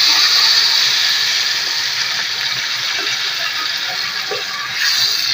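Wet ground tomato, onion and green chilli paste sizzling loudly as it is poured into hot oil in a kadai. The hiss slowly fades, then swells briefly near the end.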